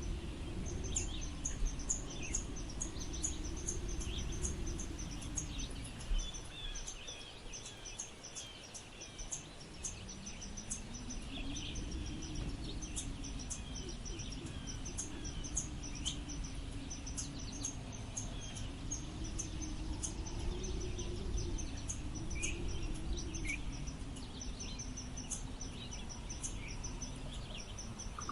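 Wind blowing in gusts, with a low moaning tone that rises and falls and drops away briefly around eight to ten seconds in. Over it runs steady, rapid high-pitched chirping with scattered bird calls.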